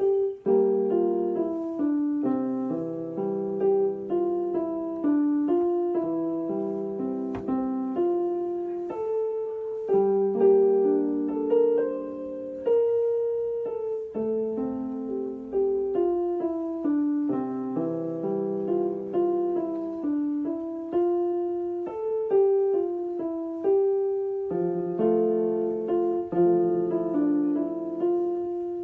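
Background piano music: a gentle melody of notes struck and left to ring, played on over a steady accompaniment.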